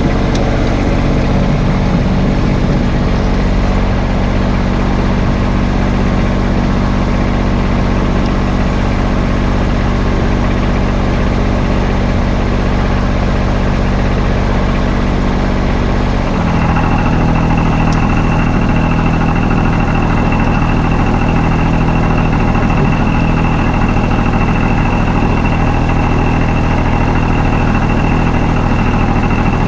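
An engine running steadily and loud, with an even, unchanging note that shifts to a slightly different pitch about halfway through.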